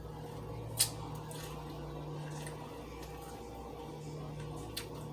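A person chewing food close to the microphone, soft wet squishy mouth sounds, with two sharp clicks, one about a second in and one near the end, over a steady low hum.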